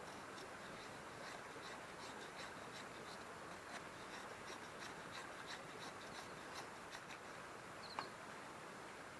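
Steady rushing of river water, with faint small ticks scattered through it and one sharp click about eight seconds in.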